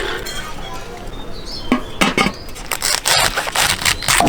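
Clinks and knocks of dishes and utensils: a few separate clicks, then a quick run of them in the second half.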